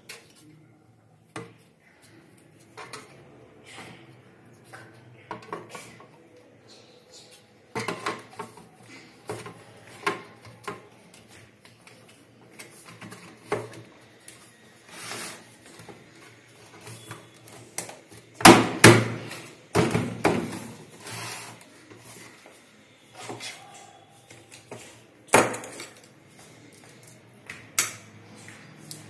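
Hard plastic clicks, knocks and clatter from an APC Back-UPS case being handled and its cover fitted back over the unit. The clicks and knocks are scattered and irregular, with a loud cluster of knocks about two-thirds of the way through and two more sharp knocks near the end.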